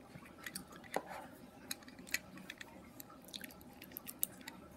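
Faint scattered clicks and taps of a plastic USB flash drive and a Lightning to USB 3 camera adapter being handled as the drive's connector is lined up with the adapter's USB port.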